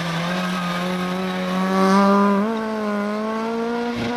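A Peugeot 106 rally car's engine revving hard as it accelerates out of a hairpin bend. Its pitch climbs steadily and it is loudest about two seconds in, with a gear change right at the end.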